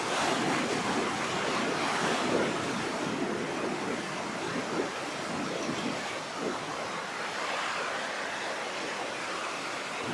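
Rough sea ahead of a typhoon: surf breaking and washing in a steady rush, loudest in the first few seconds and then easing a little.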